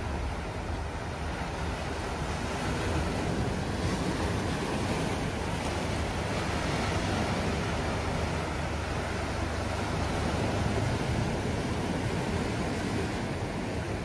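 Sea surf breaking and washing over shoreline rocks: a continuous rushing wash that swells and eases slowly.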